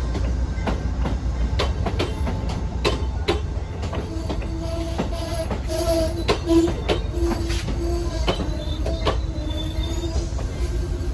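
Amtrak Amfleet passenger coaches rolling past slowly as the Downeaster arrives, with a low rumble and a run of sharp clicks from the wheels crossing rail joints. A steady squeal from the train sets in about four seconds in and fades near nine seconds.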